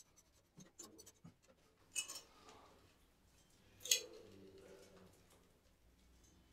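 Faint clinks, scrapes and clicks of a hand tool and metal plumbing fittings being handled and screwed onto a concealed mixer, with two sharper clinks about two and four seconds in, the second ringing briefly.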